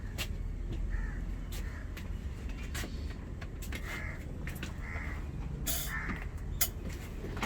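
Crows cawing about four times, short harsh calls, over a steady low background rumble, with a few sharp taps in between.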